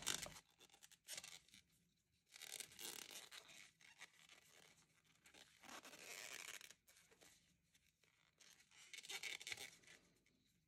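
Faint rustling and scraping of t-shirt yarn being worked with a crochet hook, in a few short, separate bursts.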